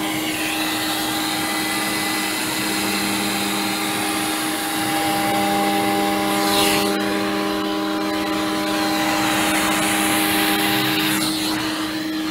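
CNC router spindle cutting a shallow roughing pass, over the steady drone of a vacuum running alongside to clear the chips. Several constant hum tones hold underneath while the cutting noise swells briefly about halfway through and again near the end.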